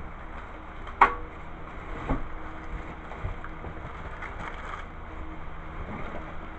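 Exercise bike parts being handled in a cardboard box: a sharp knock about a second in, a duller knock a second later, then light rustling of plastic wrapping, over a steady low hum.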